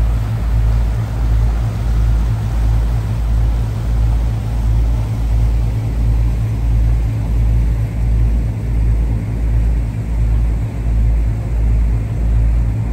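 Sightseeing boat under way: a heavy low engine rumble that swells and dips about once a second, with the hiss of water churning in its wake.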